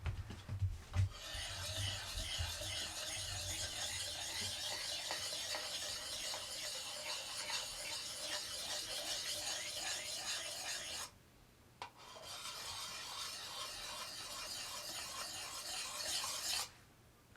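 Fine diamond sharpening stone rubbed along the edge of a vintage Belknap double-bit axe: a steady rasping scrape in two long stretches, with a short pause about eleven seconds in. A few dull knocks right at the start.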